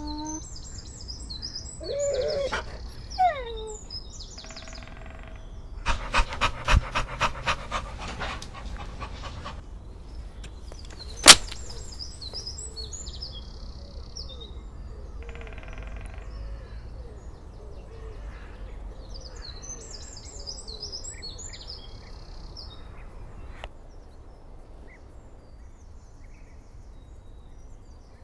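Forest ambience sound effects: a steady outdoor hiss with bird chirps coming and going. A short pitched animal call comes about two seconds in, then a quick run of about seven knocks. A single loud sharp click, the loudest sound, falls about eleven seconds in.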